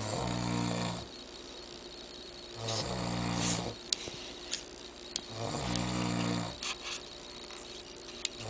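A man snoring: three deep, drawn-out snores about three seconds apart, with a few sharp clicks in the quiet between them.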